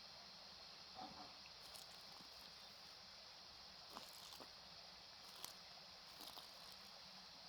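Faint, steady, high night insect chorus over a farm, with a few soft clicks and rustles scattered through it.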